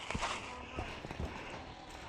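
Footsteps of a person walking outdoors: a few irregular dull steps over background rustle.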